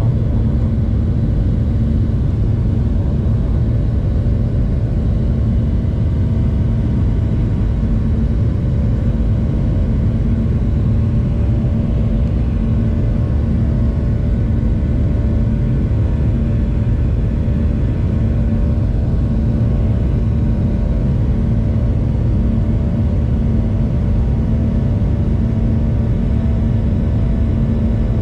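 Jet airliner's turbofan engines at takeoff thrust, heard from inside the cabin as a steady, loud rumble with a constant hum through liftoff and the initial climb.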